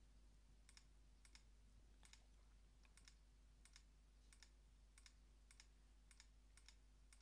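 Faint computer mouse clicks: about a dozen single clicks, roughly one every half second to second, as the zoom tool steps in on the photo.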